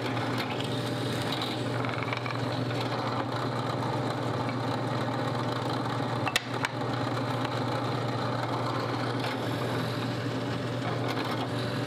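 Benchtop drill press motor running with a steady hum while a 1/4-inch bit is fed down to drill holes in a wooden frame piece. A single sharp click about six seconds in.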